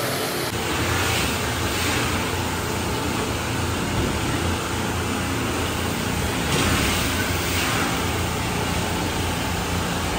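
Steady machine noise: a low hum under a broad hiss that holds level and never pauses.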